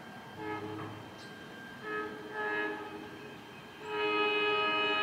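New Jersey Transit train's horn sounding several blasts as the train approaches, the last the loudest and held about a second.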